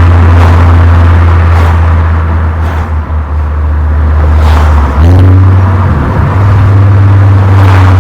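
Exhaust note of a Mk4 Volkswagen Golf VR5's 2.3-litre five-cylinder engine while driving, recorded close to the tailpipe. It runs loud and steady, eases off a couple of seconds in, then comes back on abruptly about five seconds in at a higher pitch.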